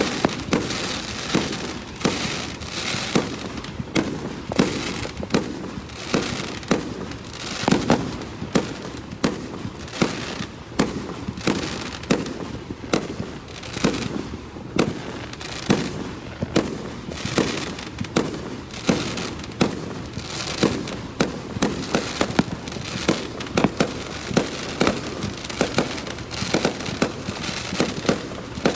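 Aerial fireworks launching and bursting in a rapid, steady string of sharp bangs, about two to three a second, with a noisy haze between them.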